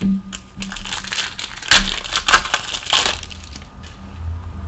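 Wrapper of a trading-card pack crinkling and crackling as it is opened and handled, in a dense run of crackles lasting about two and a half seconds, then fading.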